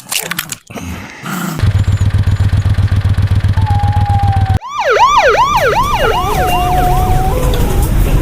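A vehicle engine running with a fast, steady low pulse. About halfway through, police sirens start over it, sweeping rapidly up and down in pitch. A few sharp knocks come in the first second or so.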